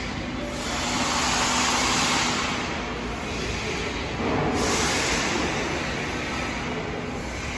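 High-pressure two-stage oil-free screw air compressor running with a steady mechanical noise and a faint low hum. Two louder surges of air hiss come in, one shortly after the start and one past the middle, each lasting about two seconds.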